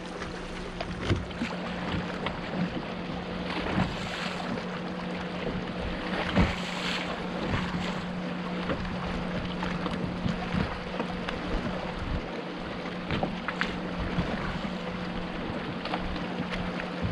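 Wind and water noise on a fishing kayak on a lake, with a steady low hum and scattered light knocks.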